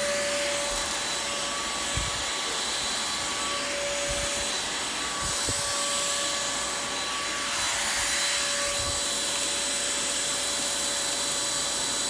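Red corded Dirt Devil handheld vacuum running steadily, a constant high motor whine over the rush of air, with a few low thumps as it is handled and bumped along the carpet.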